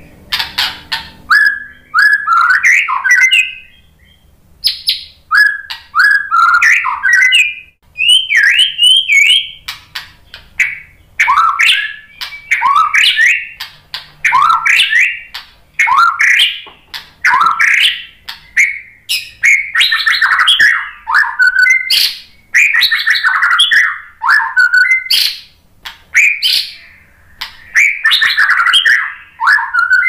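White-rumped shama (murai batu) singing loudly: a run of fast, varied whistled and chattering phrases, each a second or so long, with short pauses between them.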